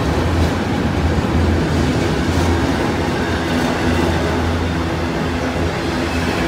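A freight train of autorack car carriers rolls past with a steady rumble of steel wheels on the rails, heaviest in the low range, and a few faint clicks.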